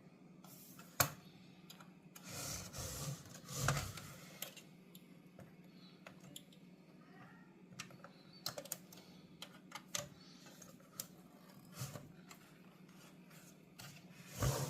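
Plastic clips and trim of a car radio display unit clicking and scraping as the screen is pried out of its housing: a sharp snap about a second in, rubbing and rustling for a couple of seconds, then scattered light clicks.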